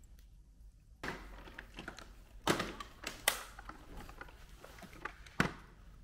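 Hard plastic being handled, a cleaning-solution bottle against a wet-dry vacuum's clear water tank: light rattling from about a second in, with three sharp clicks.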